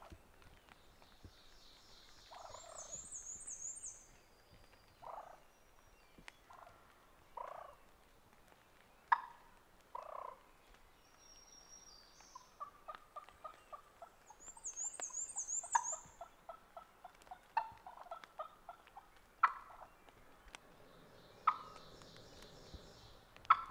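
Wild turkey calling close by: single short clucks scattered throughout, and twice a quick run of evenly spaced notes. A small songbird trills high in the background twice.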